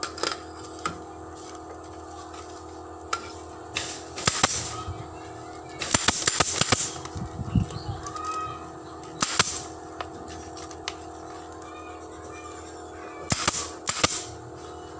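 Pneumatic staple gun firing sharp shots, some singly and some in quick runs of several, over a steady hum.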